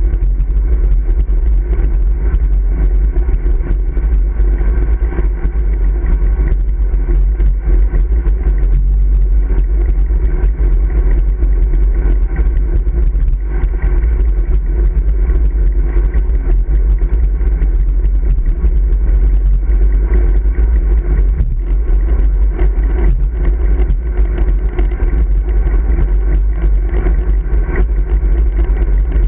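Wind buffeting the microphone of a handlebar-mounted camera on a moving road bike, mixed with road and tyre vibration: a loud, steady rumble.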